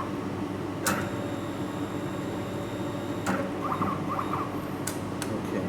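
Steady low hum of a running laser welding machine, with several sharp clicks. A faint high steady whine runs between the first click, about a second in, and the second, about three seconds in.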